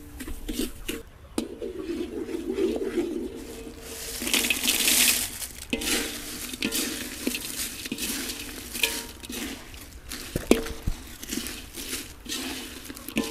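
Kitchen utensils and dishes clinking and knocking in irregular short clicks, with a brief rush of hissing noise about four seconds in.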